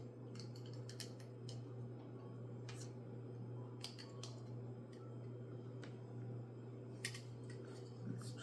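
Scattered light clicks and taps of a pie press and dough being handled on a counter, irregular and a second or so apart, over a steady low hum.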